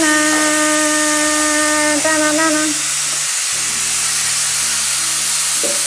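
Stovetop pressure cooker letting off steam: a loud whistle with a steady tone that wavers and breaks off after about two and a half seconds, then a strong hiss of escaping steam that carries on.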